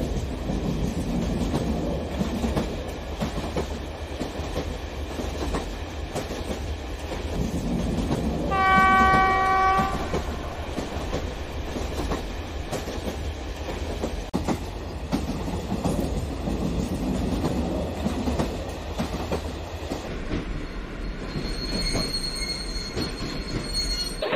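Electric model train of plastic oil tanker wagons rolling over plastic track with a steady rumbling clatter. About nine seconds in a train horn sounds once for about a second and a half, and a faint high whistle tone comes in near the end.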